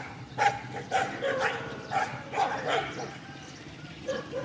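Dogs barking: a rapid run of short barks through the first three seconds, then two more near the end.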